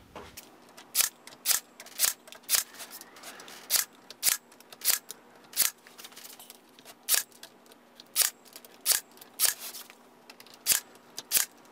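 Cordless nail gun firing nails into a wooden frame. A sharp snap comes every half second to a second, about fifteen shots in all, with a short pause about six seconds in.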